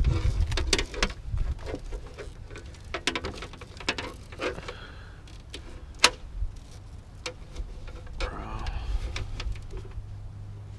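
Irregular clicks and taps of hand tools and stiff electrical wire being handled, with one sharp click about six seconds in. A low steady hum underneath from about eight seconds in.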